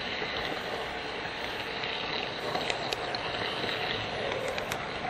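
HO-scale model train running along its track, heard from a camera riding on it: a steady rushing noise of wheels and motor, with a few sharp clicks, most of them in the second half.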